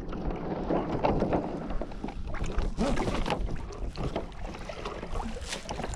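Wind buffeting the microphone and water splashing along the hull of a Hobie Adventure Island sailing kayak as it comes about on a tack, with scattered short knocks and slaps.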